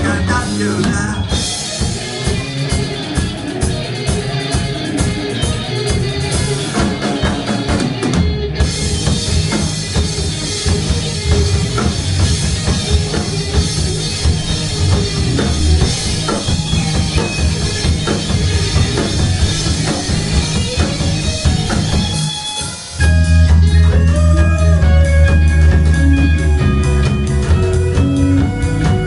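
Rock band playing an instrumental passage on drum kit, electric guitar and bass. The band breaks off for a moment about 22 seconds in, then comes back in louder.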